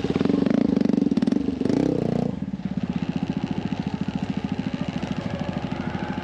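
Small motorcycle engine revving for about two seconds, then dropping back to a steady, quieter run.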